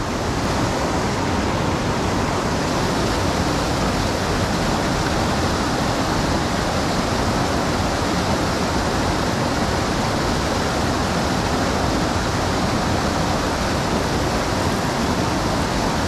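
Steady rush of moving creek water.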